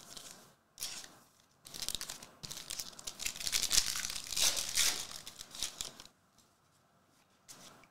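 Foil trading-card pack being torn open and its wrapper crinkled: irregular crackly rustling, loudest around the middle, dying away about two seconds before the end.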